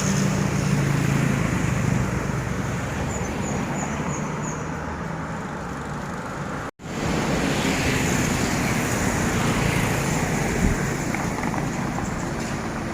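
Steady road traffic noise with car engines running, broken by a brief cut to silence about seven seconds in.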